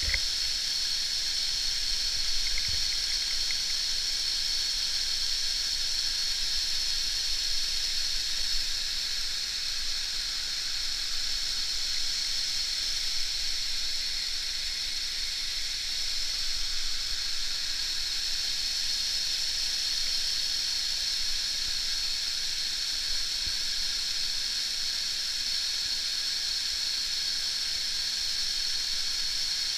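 Waterfall: falling water making a steady, unbroken rushing hiss.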